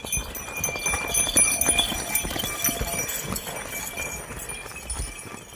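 A pair of yoked bullocks trotting with a heavy stone block dragged behind them on a dirt track: a dense, irregular run of hoof thuds and running footsteps over the grinding scrape of the stone, with a faint high jingle of bells.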